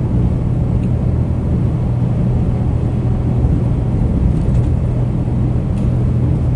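Kenworth T880 truck cruising at highway speed, heard from inside the cab: a steady engine drone with a constant low hum under road and tyre noise.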